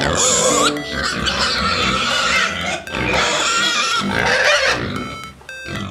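Pig calls, several noisy squeals and grunts in a row, with a short drop near the end.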